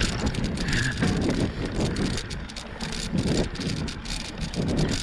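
Bicycle rolling over a rough dirt trail: tyre rumble with rattles and knocks from the bike, and wind buffeting the microphone.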